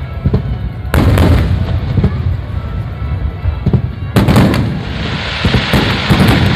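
Fireworks going off. Sharp bursts come about a second in and again about four seconds in, each followed by a spell of crackling, over continuous low booming.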